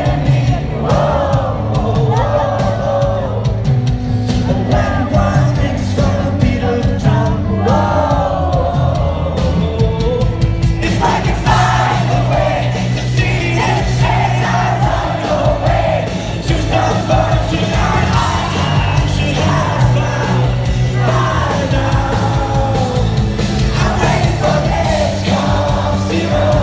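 Live pop-rock concert heard from within the crowd: a male singer over a band, with audience voices yelling and singing along. The full drum kit and cymbals come in about eleven seconds in.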